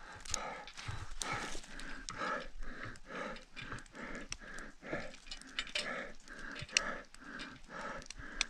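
A climber's heavy, rhythmic panting close to the microphone, about two breaths a second, from hard exertion while climbing steep snow. Occasional sharp clicks from climbing gear are heard over it.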